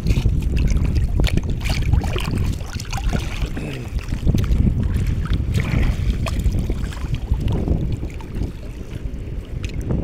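Wind rumbling on the microphone over open sea water, with water splashing and many small sharp knocks and clicks scattered throughout. The level dips a little near the end.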